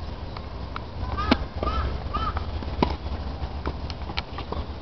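Tennis balls struck by racquets in a hard-court rally: sharp pops, the loudest about a second in and another near three seconds, with fainter hits between, over a steady low rumble.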